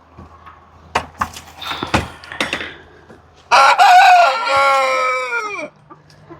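A rooster crowing once, a loud call of about two seconds that sets in abruptly and falls in pitch at the end. A few short knocks come before it.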